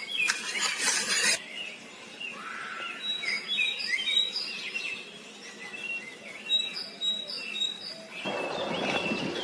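Small birds chirping again and again in short high calls. A short scraping noise about a second long comes right at the start, and a soft hiss near the end.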